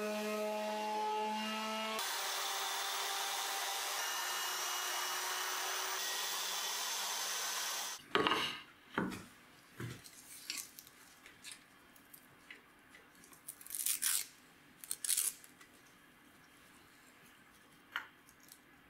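Corded palm sander running against a wooden board: a steady motor hum, then for the next six seconds or so a steady hiss of sandpaper on wood, which stops suddenly. After that, quieter bursts of sandpaper rustling and scraping as it is handled and rubbed around a wooden dowel.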